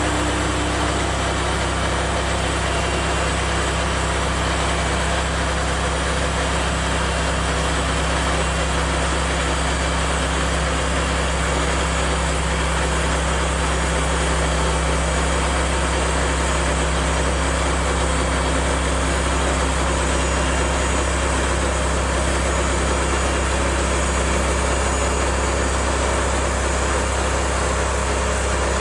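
Woodland Mills HM136MAX portable band sawmill's gas engine running steadily at an even speed.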